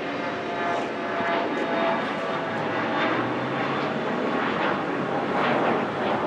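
Fixed-wing aircraft's engines running as it passes on the runway: a steady, dense rush of noise, with a faint steady tone in the first few seconds.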